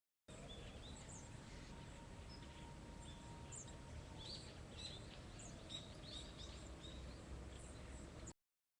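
Small birds chirping repeatedly over a low, steady outdoor rumble. The sound starts and stops abruptly.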